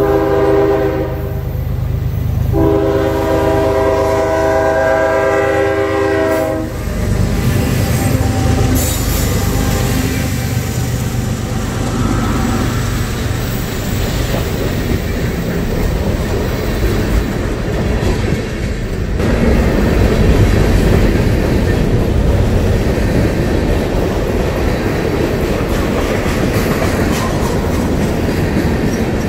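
CSX diesel freight locomotive's air horn sounding two blasts, a short one and then one of about four seconds. After the horn the locomotive passes with its engine rumbling, and a long train of covered hoppers and tank cars rolls by with steady wheel noise and clickety-clack over the rail joints.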